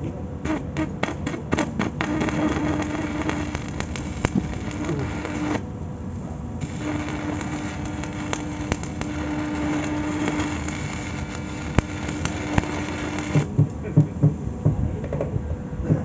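Electric arc welding: the arc crackles and spits steadily with a low hum, breaks off for about a second partway through, then strikes again. Near the end the arc stops and a quick run of low knocks follows.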